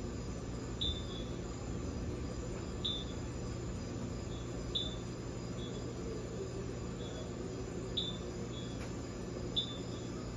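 Short high chirps from a night-calling animal, one every second or two, each with a sharp start and a brief trailing note. Fainter answering chirps fall in between, over a steady low background hum.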